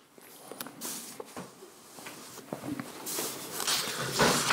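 Soft rustling and handling noises with a few light clicks, louder from about three seconds in.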